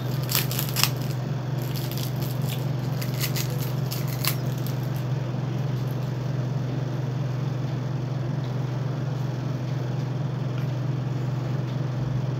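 Plastic crinkling and clicking as the straw is pulled from its wrapper on a small juice carton, in the first few seconds, over a steady low hum that runs throughout.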